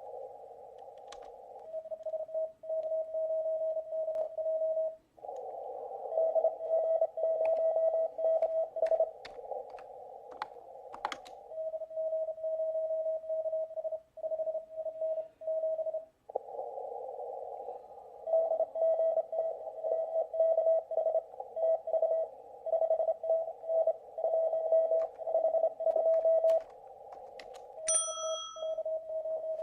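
Amateur radio CW reception: a Morse code tone near 600 Hz is keyed in dots and dashes over band hiss held to a narrow receive passband. A few sharp clicks fall in the first half, and a short high beep sounds near the end.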